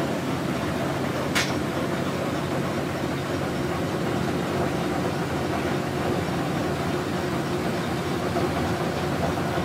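Class 05 diesel shunter's engine idling steadily, heard from inside the cab. A single sharp click about a second and a half in.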